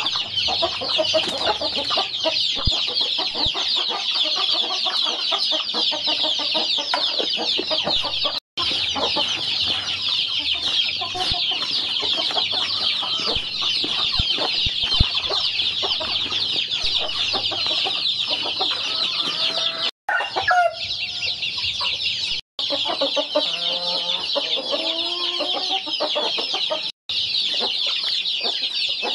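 Many chicks cheeping nonstop in a dense, high chorus, with lower hen clucks mixed in at times, most clearly about three-quarters of the way through.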